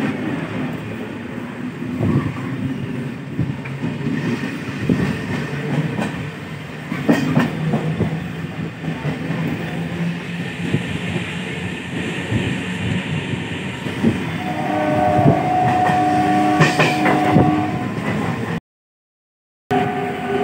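Passenger train running, heard from inside a carriage: a steady rumble with rail clicks. A horn sounds for about three seconds near the end, followed by a brief dropout.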